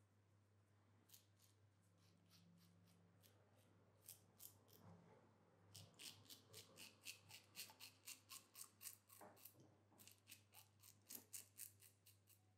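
Faint scratchy strokes of a safety razor cutting stubble through shaving cream on the face. The strokes are scattered at first, then come in a quick run of about three to four a second from about halfway through.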